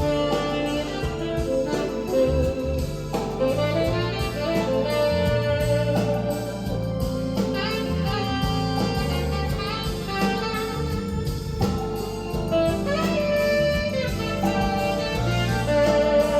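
Recorded instrumental music played back through an Accuphase E-280 integrated amplifier and hi-fi speakers: a lead melody over a steady bass line.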